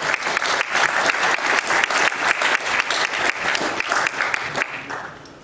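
Audience applauding, a dense patter of many hands clapping that dies away a little before the end.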